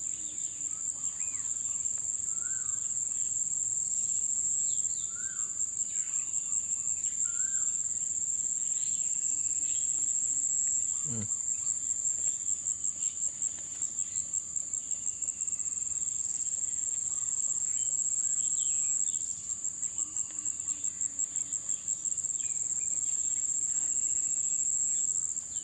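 Steady, high-pitched insect chorus that pulses rapidly at times, with scattered faint chirps.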